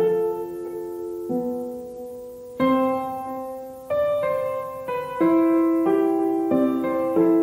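Background piano music: slow chords struck about once a second, each ringing on and fading before the next.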